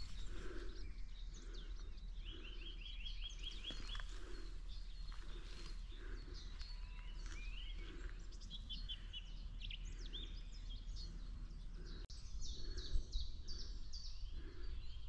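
Footsteps of someone walking at a steady pace, about two steps a second, while several songbirds chirp and sing around them, one with a quick run of repeated notes.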